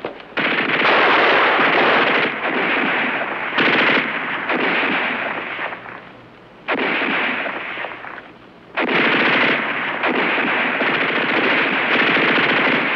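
Machine-gun fire in several long bursts with short pauses between them, as in a war-film battle soundtrack.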